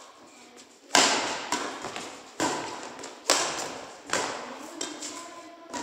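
Badminton rally: rackets hitting a shuttlecock, about five sharp strikes roughly a second apart with a few lighter knocks between, each hit echoing briefly.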